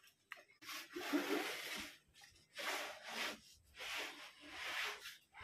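Plywood sheets sliding and rubbing across a wooden table-saw top, in about four strokes of half a second to a second and a half each.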